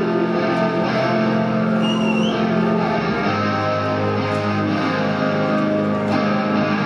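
Live rock band led by electric guitar with effects, held ringing notes over a steady low backing, with no singing yet. A brief high whistle cuts through about two seconds in.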